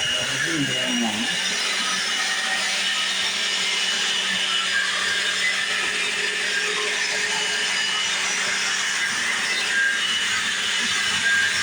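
Dirt Devil Classic vacuum cleaner running steadily on a rug: an even rush of motor and airflow with a thin high whine over it.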